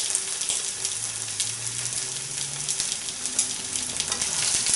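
An egg frying in hot bacon fat in a non-stick frying pan: a steady sizzle with frequent small crackling spits.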